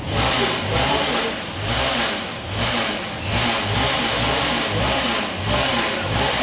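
An engine revving in repeated surges, rising and falling about once a second.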